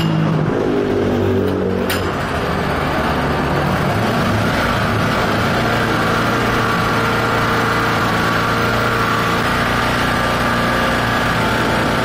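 Small four-stroke petrol generator engine catching on a recoil pull and then running steadily. This is its test run after the leaking valve was repaired.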